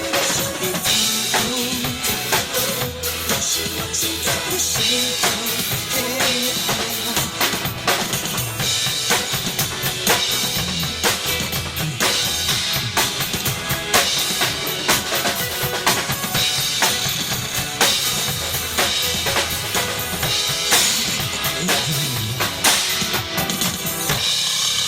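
Instrumental stretch of a pop song with no singing, carried by a drum kit playing kick drum and snare hits in a steady beat under the backing.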